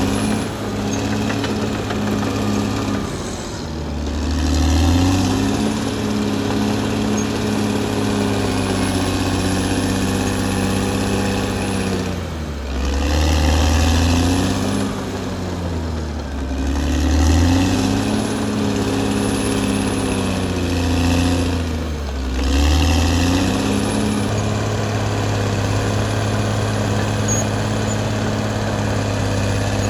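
Caterpillar D6R XL bulldozer's diesel engine running, its pitch dipping and recovering about five times as the engine load and throttle change.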